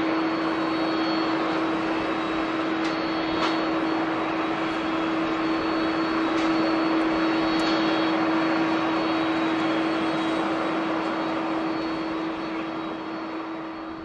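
Jet engines of a Boeing 737-800, its two CFM56 turbofans, as the airliner rolls along the runway: a steady rushing roar with a constant low hum and a faint high whine, fading a little near the end.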